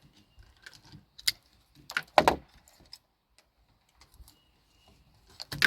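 Clicks, rattles and knocks of the wiring and plastic and metal parts of a Genie garage door opener being handled and pulled apart by hand. The loudest knocks come about two seconds in and near the end.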